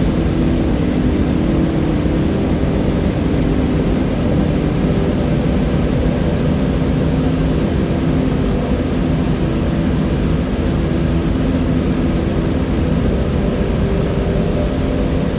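Steady rush of flowing water, a river or waterfall, even and unbroken with most of its weight in the low rumble.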